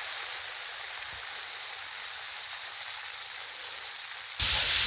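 Quail pieces and a chicken drumstick deep-frying in a wok of hot oil, the oil sizzling steadily. Near the end the sizzle suddenly gets much louder.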